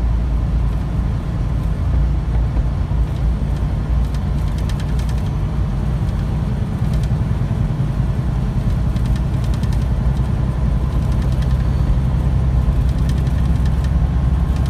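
Semi truck cruising on the highway, heard from inside the cab: a steady low diesel engine drone mixed with road and tyre noise.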